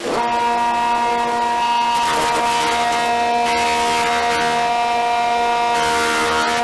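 Table saw motor running with a steady whine while ripping thick meranti stock; the cut rises in surges of hiss several times as boards are fed through the blade.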